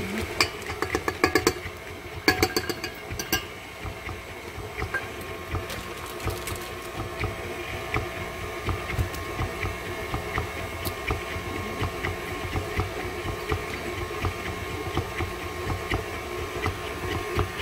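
Electric stand mixer running steadily, creaming a thick mixture as powdered sugar is worked in, in a stainless steel bowl. A quick series of sharp clicks and clatters in the first few seconds.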